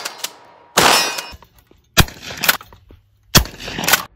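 Three shotgun shots about a second and a quarter apart, each followed by a short decaying echo. Smaller metallic clanks fall between the shots.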